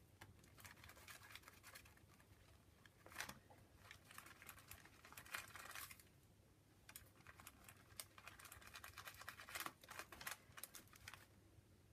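Faint scratchy rubbing of fingertips smearing paint across a paper journal page, coming in a few short spells with quiet gaps between.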